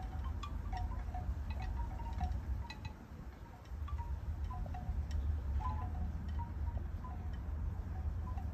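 Wind buffeting the microphone in a steady low rumble, with many short, light tinkling notes scattered throughout. The rocket itself is not heard at this distance.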